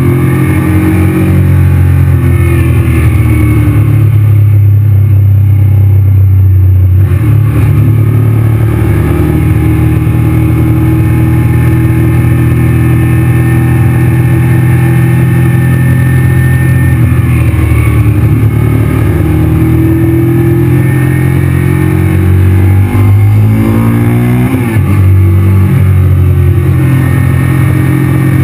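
Honda VTR motorcycle's V-twin engine running steadily at cruising speed, heard from the rider's position over a constant rush of wind and road noise. The engine note changes about 7 seconds in, and near the end it dips and climbs again as the revs change.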